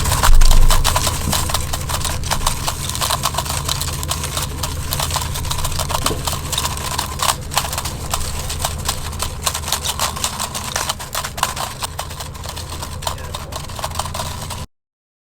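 An AR-15 rifle dragged over the ground behind a running vehicle: a steady engine hum under a constant, irregular clatter of knocks and scrapes, with a loud thump just after the start. The sound cuts off suddenly shortly before the end.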